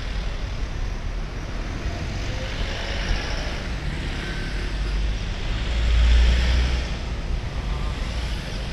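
Street traffic: a steady rumble of engines and road noise, swelling louder about six seconds in as a vehicle passes close.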